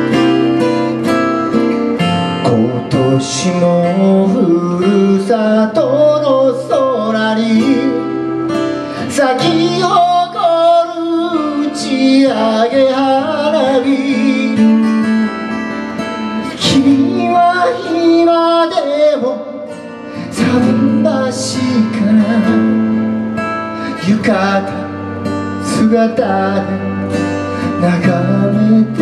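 Live acoustic band music: acoustic guitars strummed, with singing over them.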